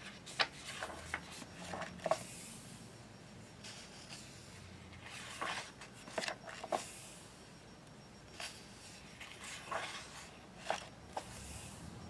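Paper pages of a paperback coloring book being turned and handled: soft rustling swishes and scattered light taps of paper and fingers.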